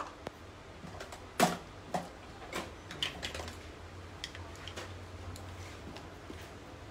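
Scattered light clicks and taps, the loudest about one and a half seconds in, over a faint steady low hum.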